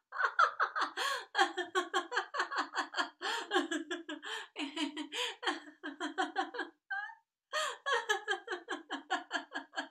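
A woman laughing without a break in quick voiced pulses, about five a second, during a laughter yoga exercise; she pauses briefly about seven seconds in, then laughs on.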